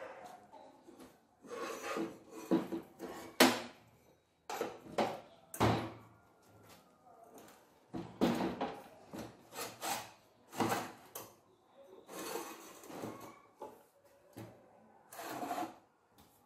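Irregular knocks, clunks and scraping of metal parts as a small OHV engine and a car gearbox are shifted on a steel workbench and pushed together, the engine's clutch drum going into the gearbox bellhousing. The sharpest knock comes about three and a half seconds in.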